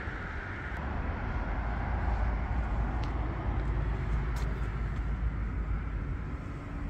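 Steady low outdoor rumble, like wind on a handheld microphone, with a few faint clicks.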